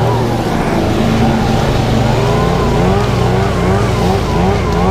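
ECHO PB-8010 backpack leaf blower running loud and close, blowing leaves, its engine note wavering up and down.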